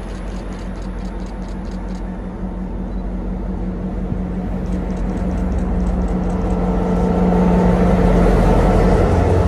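Norfolk Southern diesel locomotive leading a freight train, its engine running with a steady hum that grows louder as it approaches and passes close by near the end.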